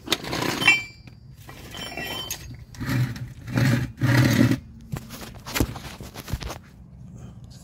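Handling noise as the camera is moved and repositioned: irregular rubbing and bumping, heaviest about three to four and a half seconds in, with a few light metallic clinks in the first two seconds.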